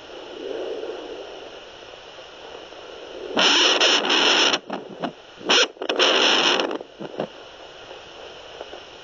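Steady hiss from a fetal Doppler heart monitor's speaker, broken by two loud bursts of crackling static, about three and five and a half seconds in, while the probe searches without yet picking up a clear heartbeat.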